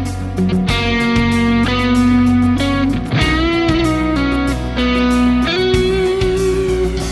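Distorted electric guitar, a Telecaster played through an Xotic XTC-1 tone, playing a sustained lead melody with held notes, pitch bends and vibrato over a steady low bass backing.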